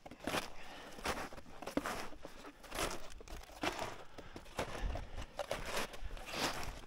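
Footsteps crunching in snow at a walking pace, about one step a second.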